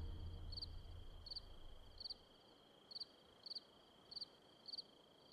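Cricket chirping at an even pace, short high chirps about every half second over a faint steady high tone, while a deep low rumble dies away in the first two seconds.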